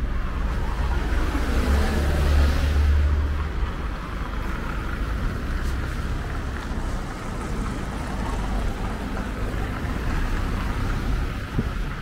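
City street traffic: a steady low rumble of passing cars, with one vehicle going by about two seconds in, its sound swelling and falling in pitch.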